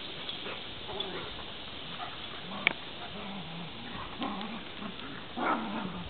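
Young beagles making a string of short, low grumbling and whining sounds while playing, with a louder one near the end.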